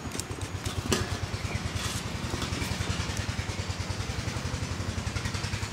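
A small engine running steadily with a fast, even putter, and a sharper knock about a second in.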